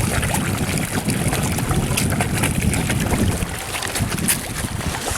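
Mass of carp splashing and slurping at the water's surface as they thrash for bread, many short wet splashes over a low rumble of wind on the microphone.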